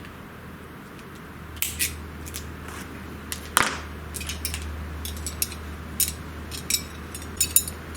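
Cutters snipping, with a string of sharp, irregular clicks and snaps that begins about one and a half seconds in, over a faint steady low hum.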